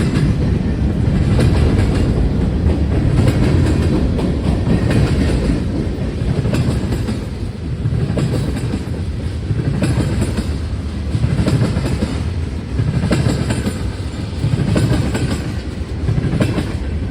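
Cars of a CN freight train rolling past: a steady rumble of wheels on rail that swells and eases every second or two as the cars' wheel sets go by, with light ticks from the wheels over the track.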